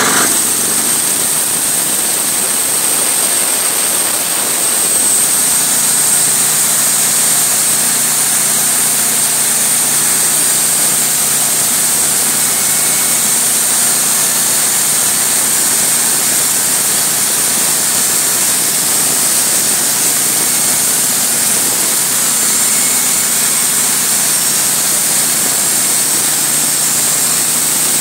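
Wood-Mizer portable bandsaw mill sawing a Western redcedar log: its Kohler engine runs steadily under load while the band blade cuts, with a high steady whine over the engine.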